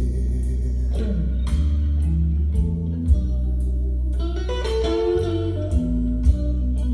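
Guitar-led blues music with bass and a steady drum beat, about two beats a second, played from a vinyl record on a turntable through a pair of hi-fi loudspeakers in a small room.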